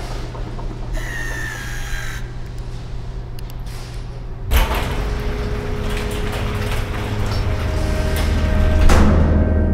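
Cinematic sound design over a low continuous drone: a brief high metallic squeal about a second in, then a sudden hit a little past the middle that opens into held low tones, with another swell and hit near the end.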